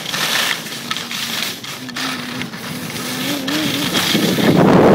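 Donek FC1 alpine snowboard carving on snow: the edge scrapes and hisses over the surface, with wind on the microphone, and the rush grows louder about four seconds in.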